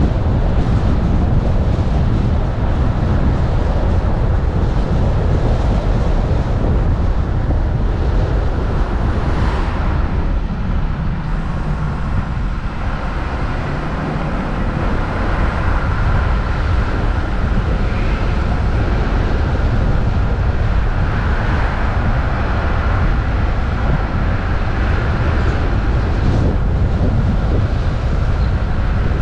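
Driving noise from a camera on a Jeep Wrangler's hood: a steady low wind rumble on the microphone over the engine and tyre noise.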